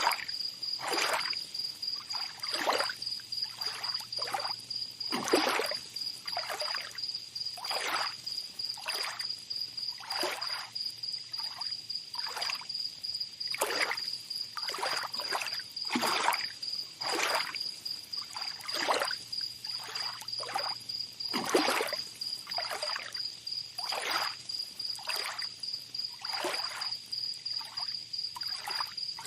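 Small waves lapping and splashing at the shore in quick, irregular splashes about once or twice a second. An insect trills on one steady, high, finely pulsed note throughout.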